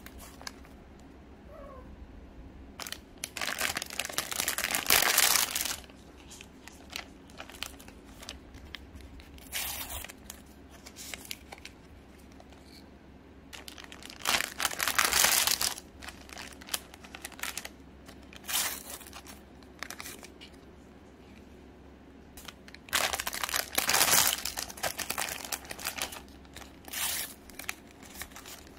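Plastic snack-bread wrappers crinkling and tearing as they are handled and opened, and the paper sticker sleeves inside peeled apart. The crinkling comes in about five loud bouts a few seconds apart, with quieter rustling between.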